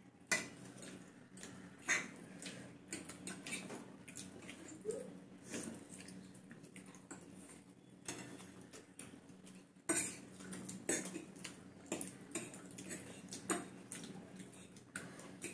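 Metal forks clinking and scraping against ceramic plates, in irregular sharp clicks with a few louder clinks, one just after the start, one about two seconds in and one about two-thirds of the way through.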